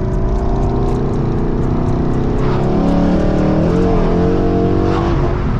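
Car engine and exhaust running while driving, on its old mufflers before the swap; the engine note rises briefly past the middle and settles again.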